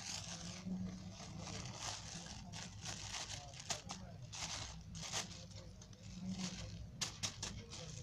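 Thin plastic bag of all-purpose flour crinkling and rustling in the hands as it is squeezed and emptied into a bowl, in irregular strokes with a few sharper crackles near the end.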